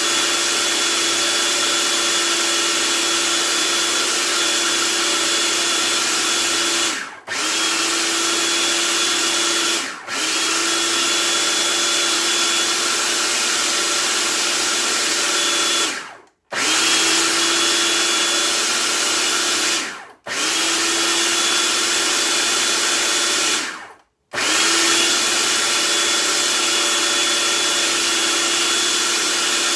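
Food processor motor running hard, grinding a thick chickpea mixture with a steady whine. It is paused about five times for a moment and spins back up each time.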